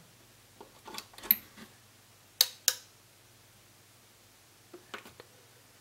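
Mains cord plugged into an LG 50PJ350 plasma TV with a repaired power supply board, a few light handling clicks, then the supply board's relay clicking once, two sharp clicks close together about two and a half seconds in, the loudest sound.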